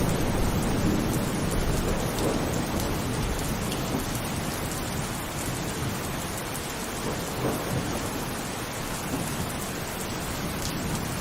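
Heavy rain falling steadily, with a low rumble of thunder that is strongest in the first few seconds, eases off, then starts to build again near the end.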